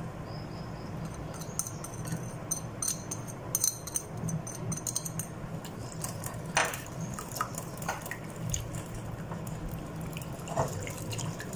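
Wire whisk beating yogurt in a bowl: wet stirring with quick clicks of the metal tines against the bowl, densest in the first half, with a few louder knocks later.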